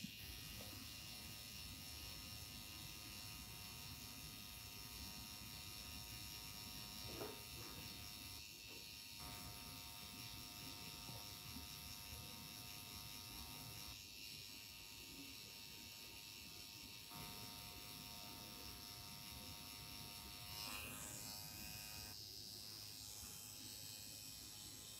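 Permanent-makeup tattoo machine running with a faint, steady buzz as its needle works along the lash line.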